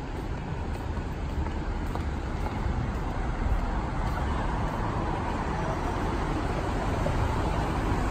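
Steady city street traffic noise, cars running on the road below, with a low rumble.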